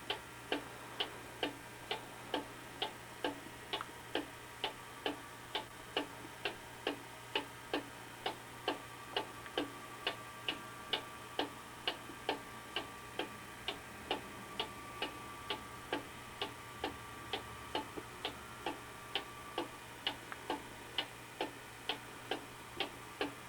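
Vintage weight-driven cuckoo clock ticking steadily, about two even ticks a second, from its pendulum escapement.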